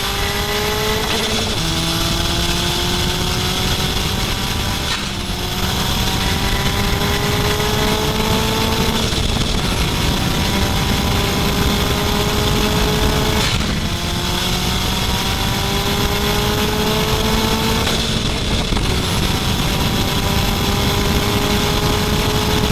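Turbocharged Honda D16 single-cam four-cylinder engine pulling hard under acceleration through the gears. The pitch climbs steadily, dips briefly at each shift and climbs again, about five times, over heavy wind and road noise at a car-mounted camera.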